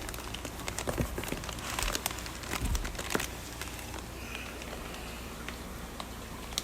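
Plastic fish-shipping bags rustling and crinkling as they are handled, with a few light clicks and knocks during the first three seconds or so, then only a faint, steady low hum.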